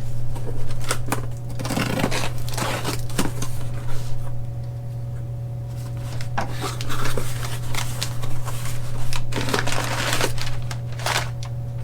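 Parts and packaging being handled: irregular rustling with light clicks and clinks of metal hardware, over a steady low hum.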